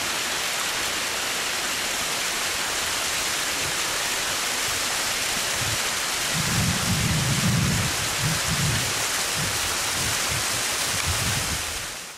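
Steady rushing hiss of wind and a mountain stream running down a rock gully. From about six seconds in, gusts of wind buffet the microphone with low rumbles, and the sound fades out at the very end.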